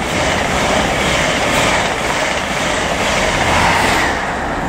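Class 43 HST (VP185-engined power cars) passing through the station at speed without stopping: the steady rush of the coaches and the rear power car going by, easing about four seconds in as the train draws away.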